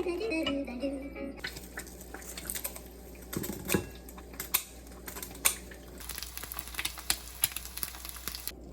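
A series of irregular light clicks and taps.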